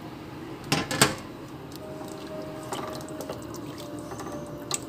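Chicken stock boiling and bubbling in a pot, with two sharp knocks against the pot about a second in.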